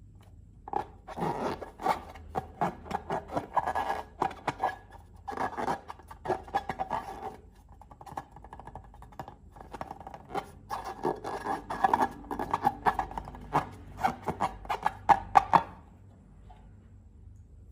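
Slime being squished and stretched by hand, giving rapid sticky clicks and crackles in three bursts with short pauses between them.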